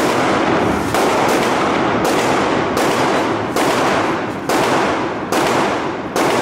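Gunshots fired at an indoor shooting range: about seven shots, roughly one a second, each followed by a reverberant echo off the range walls.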